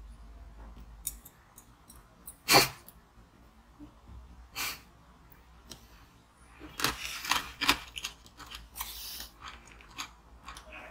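Close-up eating sounds of a pink jelly candy being bitten and chewed: a few sharp, crunchy mouth noises, the loudest about two and a half seconds in, another near five seconds, and a quick cluster around seven seconds.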